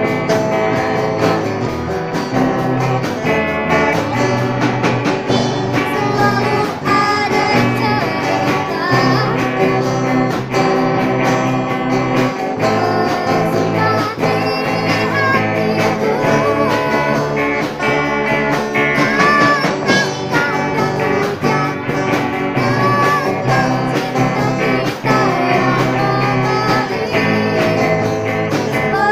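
A student rock band playing live through amplifiers: electric guitars, bass guitar, drums and keyboard, with girls singing the melody into microphones.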